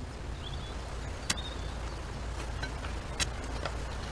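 Outdoor ambience with a steady low rumble, a couple of short faint chirps in the first second or so, and three sharp knocks spread through it, like tools striking rock at a work site.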